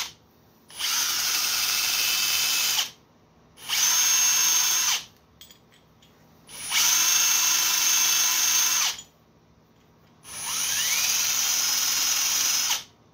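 Cordless drill spinning a wire brush against the tip of a 7.3 Power Stroke diesel injector to clean it, in four bursts of one to two and a half seconds with short pauses between.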